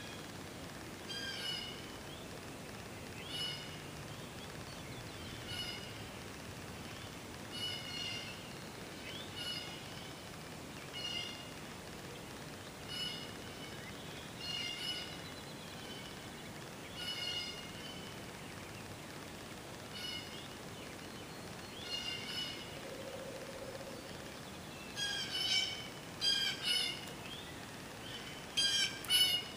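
A bird repeating short call notes every second or two, coming faster and louder near the end, over a steady outdoor hiss.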